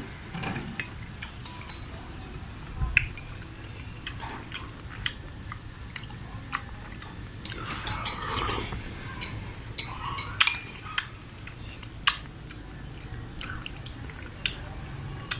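Someone eating an aloe vera dessert: chewing, with scattered sharp clicks of a spoon against a bowl.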